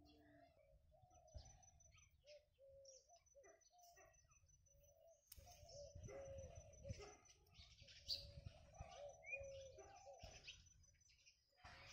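Faint outdoor birdsong: many short, soft repeated calls with scattered chirps and a thin high note held through, growing a little louder about halfway through.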